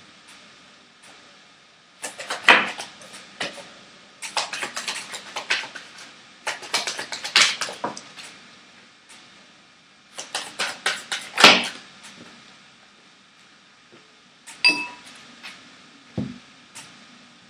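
A deck of oracle cards being shuffled by hand in four bursts of rapid flapping clicks. Near the end come a sharp tap with a brief ringing tone and a soft thump as the cards are set down on the wooden table.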